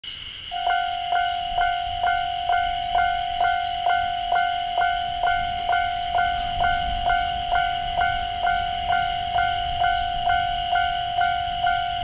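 Japanese level-crossing electronic warning bell ringing, a steady repeated ding about twice a second that starts about half a second in: the crossing signalling an approaching train while its barriers come down.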